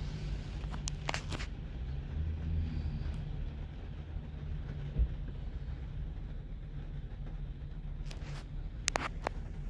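Ford F-250's 6.4-litre V8 turbo-diesel running at a steady low rumble, with a few sharp clicks about a second in and again near the end.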